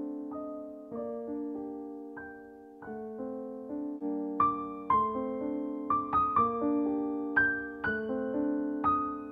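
Background piano music: a gentle melody of single struck notes over chords, each note fading after it is struck, growing a little louder and higher from about four seconds in.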